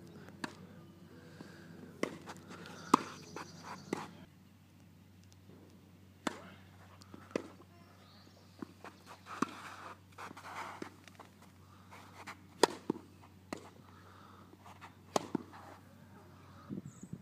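Tennis racket strings striking the ball and the ball bouncing on the court: sharp single pops every second or two, the loudest about three seconds in. A low steady hum runs underneath.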